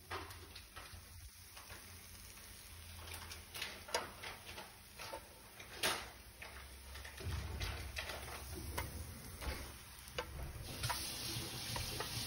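A few sharp clicks and taps of a metal spatula on a flat griddle, over the faint sizzle of lentil-and-rice (adai) batter cooking on the hot pan; the sizzle grows stronger in the last couple of seconds.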